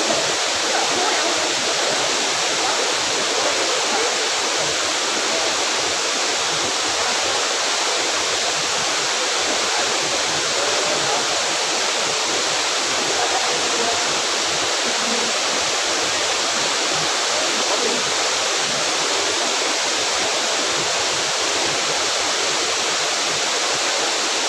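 Waterfall: falling water rushing at a steady, unchanging level.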